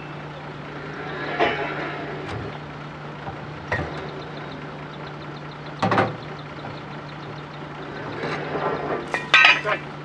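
Truck-mounted borewell drilling rig running with a steady low drone, with several short metal clanks and clinks from the rig, and a brighter ringing clatter near the end.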